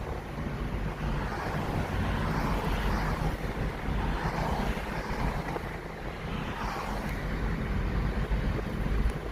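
Car driving along a road: steady low engine and tyre rumble under a haze of road and wind noise.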